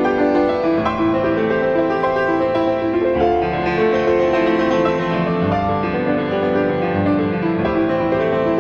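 Instrumental background music led by piano, with slow, gentle, sustained notes.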